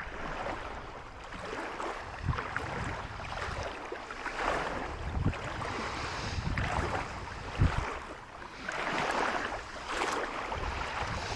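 Shallow seawater sloshing and swishing around someone wading and sweeping a metal detector through it, in uneven swells, with a few low wind buffets on the microphone.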